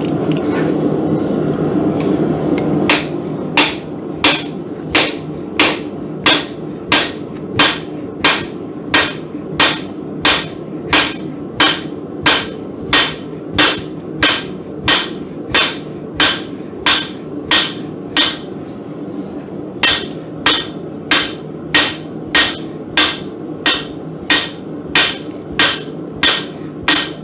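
Blacksmith's hand hammer striking a hot mild-steel bar on the anvil in steady, even blows, about three every two seconds, upsetting the end to mushroom the top of a hardy tool. A steady low rumble fills the first few seconds before the regular blows begin.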